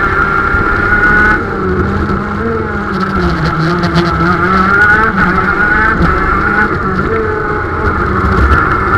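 KZ shifter kart's 125cc two-stroke engine running hard, heard from on board, its note dropping about a second in and then falling and rising again as the revs change through the corners.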